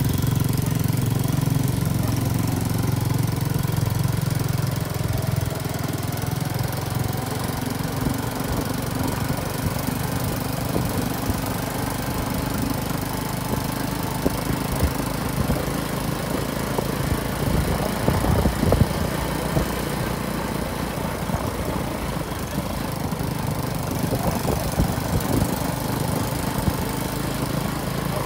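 An engine running steadily, louder in the first few seconds.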